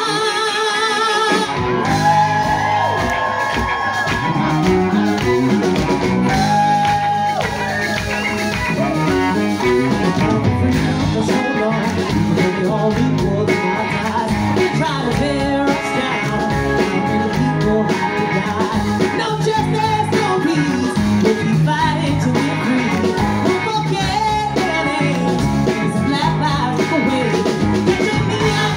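Live gospel vocal group singing with an electric band: held, wavering voices alone at first, then electric guitar, bass and drum kit come in about two seconds in, the singers carrying on over a steady beat.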